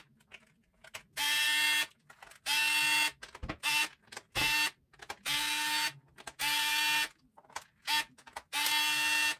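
Small cordless electric screwdriver running in repeated short bursts, each under a second with a steady whine, as it backs out the screws of a plastic hot glue gun housing. Faint clicks sound between the bursts.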